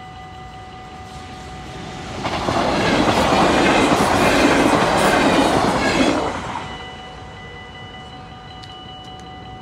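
NS double-deck electric train (VIRM) passing at speed: a rushing, clattering pass that swells about two seconds in and dies away about four seconds later. A level-crossing warning bell rings steadily under it.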